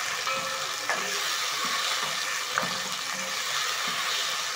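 Chopped tomatoes, carrots and onions sizzling in hot oil in a pot as a wooden spoon stirs them, with a few knocks and scrapes of the spoon against the pot.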